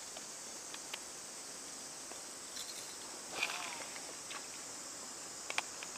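Insects droning steadily at a high pitch, with a few faint clicks scattered through; the loudest moments are a short chirp-like sound about three and a half seconds in and a sharp click near the end.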